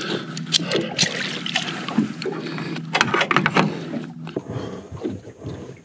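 Knocks, clicks and rattles of fishing gear being handled on a small boat, over water lapping at the hull. The clattering dies down about four seconds in.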